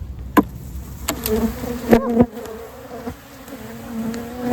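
Honeybees buzzing close by, a steady drone that sets in about a second in as they pour out of a just-opened hive, angry and confused after the move. Several sharp knocks come along the way.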